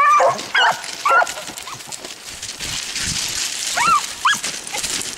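Beagles yelping in short, high cries, about six in two groups, the hound voice given while running a hare's trail.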